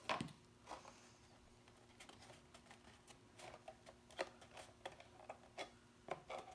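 Hands handling, folding and pressing glued cardstock tabs together: faint, scattered paper crinkles and light taps. A louder knock right at the start as a small plastic glue bottle is set down on the cutting mat.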